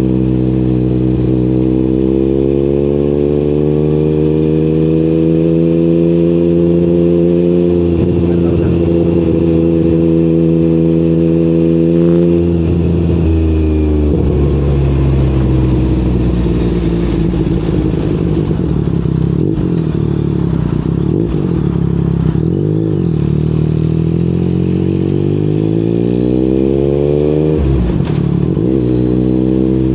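Yamaha MT-09's CP3 three-cylinder engine through an Akrapovic exhaust while riding. The engine note climbs gently and holds, drops sharply about twelve seconds in, wavers up and down for a while, then climbs again near the end.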